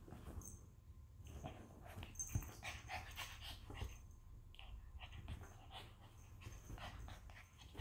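A small dog panting faintly in quick, irregular breaths while it plays, nibbling and mouthing at a bare foot.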